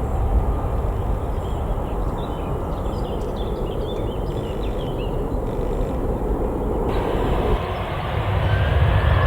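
Jet airliner engines rumbling, growing louder near the end as a rising whine comes in.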